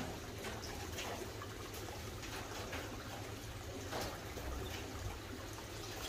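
Steady trickle of running water, with a few faint light clicks.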